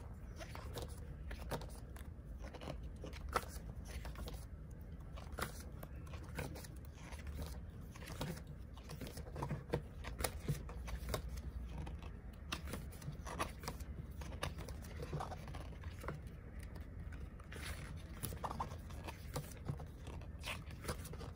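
Pages of a thick photo book being turned by hand: scattered paper rustles, soft flicks and small taps throughout, over a faint steady low hum.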